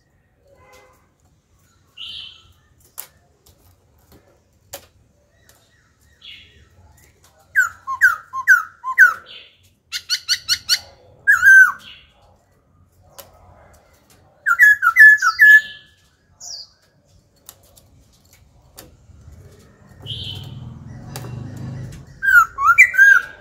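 Caged black-throated laughingthrush singing in short, loud bursts of clear whistled notes, some phrases a quick run of four or five falling whistles, with pauses between phrases. A faint low rumble comes in briefly near the end.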